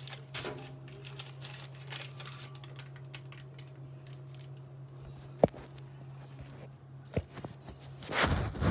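Soft rustling of baking paper and light taps as pastry dough is shaped by hand, over a steady low hum, with a sharp click about five and a half seconds in. Near the end a loud rubbing and rustling sets in as the phone recording it is handled and moved.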